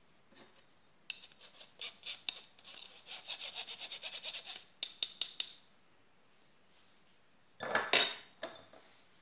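A fine-mesh metal sieve is shaken and tapped over a stainless steel bowl to sift icing sugar. It makes a quick run of light taps and rasps for a few seconds, then there is a louder clatter about eight seconds in.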